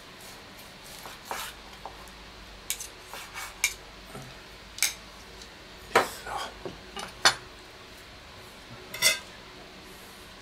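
Metal tongs and a kitchen knife clinking and tapping on a wooden cutting board: a scatter of separate sharp clicks, the loudest few in the second half.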